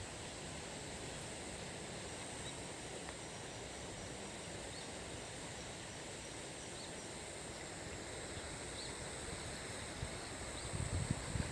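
Steady outdoor ambience in open farmland: an even rushing hiss with a thin, steady high insect drone and faint short chirps every couple of seconds. Wind starts buffeting the microphone near the end.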